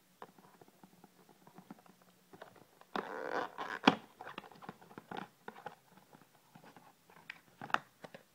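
Cardboard ck one perfume box being handled and opened: light clicks and rubbing of card, with a scraping rustle about three seconds in that ends in a sharp click.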